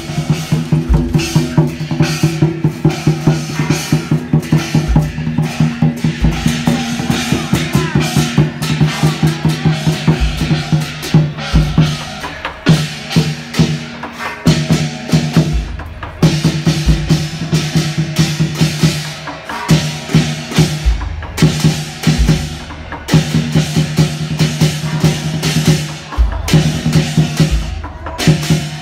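Procession drum-and-gong percussion for a dragon dance troupe: fast, dense drum strokes over a steady low ringing, with a deep bass drum beat about every second and a half and a few short breaks in the rhythm.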